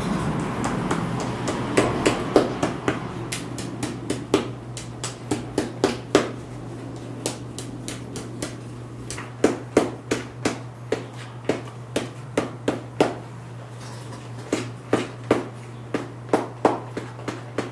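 Shoemaker's hammer tapping a hand-lasted sneaker upper and its lasting tacks: a long run of sharp, light taps at an uneven pace, some in quick twos and threes.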